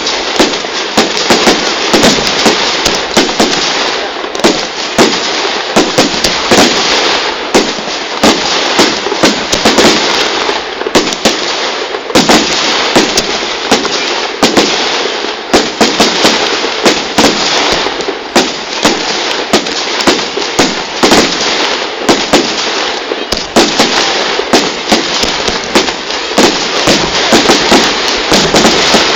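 Fireworks going off in a continuous barrage: many rapid bangs and dense crackling with no pause.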